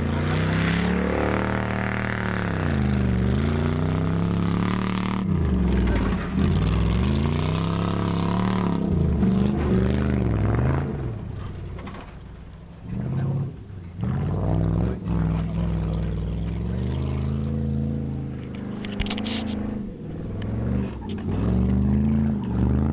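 Nissan Q45's VH45DE V8 engine revving up and falling back over and over as the car drifts on dirt, with a quieter stretch about halfway through.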